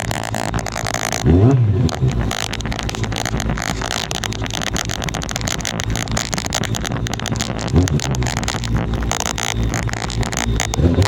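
Kawasaki Z750 motorcycle engine running, its revs rising sharply about a second and a half in, again near the middle and once more near the end.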